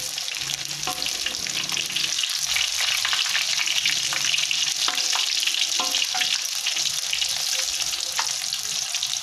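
Chicken pieces deep-frying in hot oil in a wok: a steady crackling sizzle, with a few short scrapes and taps of a metal ladle-spatula against the wok as the chicken is turned.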